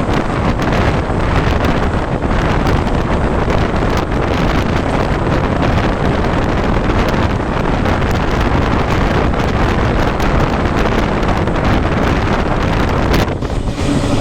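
Heavy wind buffeting the microphone over the steady running noise of a moving train hauled by a Henschel diesel locomotive. The noise dips briefly near the end.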